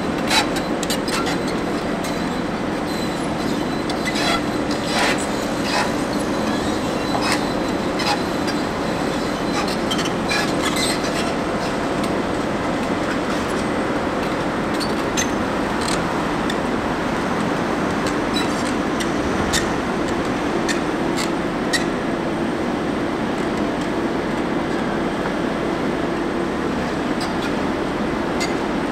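Bauer GB 50 low-headroom hydraulic grab rig running steadily with a constant drone, with scattered sharp metallic clanks and clinks, more of them in the first half.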